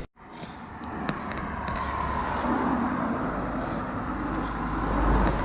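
Inline skate wheels rolling over pavement: a steady rough rolling noise that starts just after a brief break and swells a little near the end.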